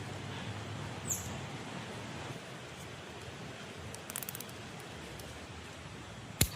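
Steady outdoor background hiss with a short high falling chirp about a second in, a quick run of small clicks around four seconds, and one sharp click near the end.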